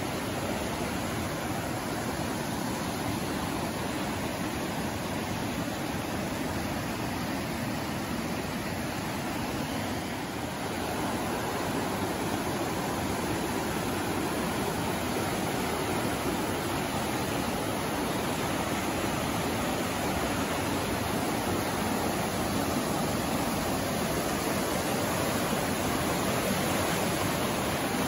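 A storm-swollen mountain creek in flood, its muddy whitewater rushing in a steady, dense wash of noise that grows a little louder about ten seconds in.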